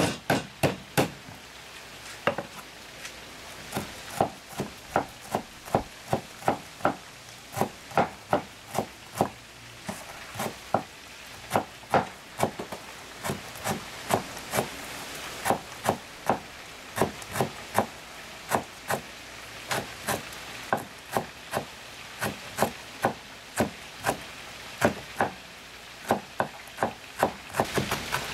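A large kitchen knife chopping and mincing lemongrass on a wooden cutting board: a steady run of sharp knocks, about two to three a second.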